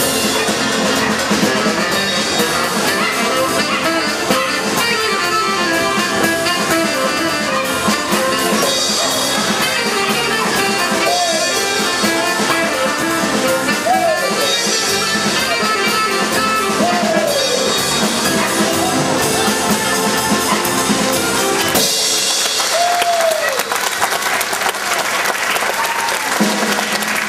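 Lively circus band music with brass and drums accompanying the act, with several short swooping pitch glides over it. Audience applause joins in.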